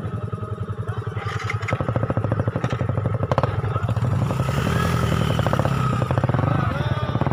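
Motorcycle engines running at low revs as a line of bikes moves slowly along a dirt track, with a fast, even putter from a nearby engine that is strongest in the first half.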